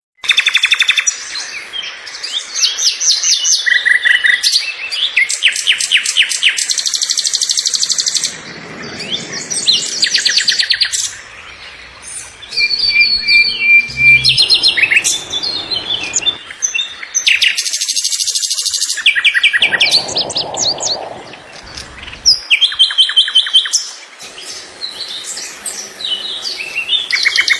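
A songbird singing a long, varied song of fast trills and quick runs of repeated high chirps, phrase after phrase with short pauses between.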